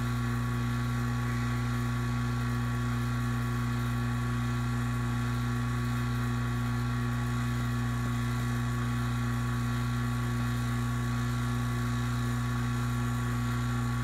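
Vacuum pump running steadily with an even, unchanging hum while it pulls a deep vacuum on refrigerant manifold gauges.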